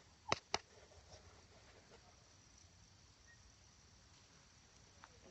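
Faint, steady high chirring of insects in the grass, with two sharp clicks close together about a third of a second in.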